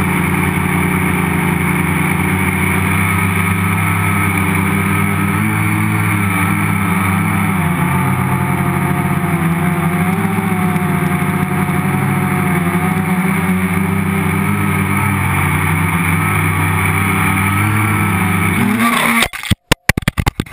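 Multirotor's electric motors and propellers running steadily in flight, loud and close from a camera mounted on the frame. About 19 seconds in, the sound breaks into a few sharp knocks and cuts off: the crash, which the pilot puts down to something getting wet in the rain.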